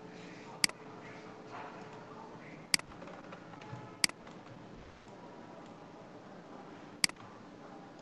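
Computer mouse button clicked four times at uneven intervals, each a sharp single click, over a faint steady background hiss.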